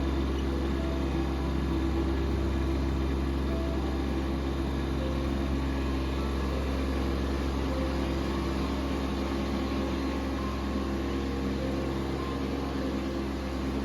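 Small farm tractor's engine running steadily, a constant low drone with no change in speed.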